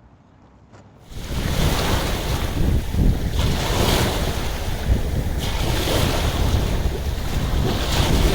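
Wind buffeting the microphone: a loud, uneven rushing rumble that starts suddenly about a second in.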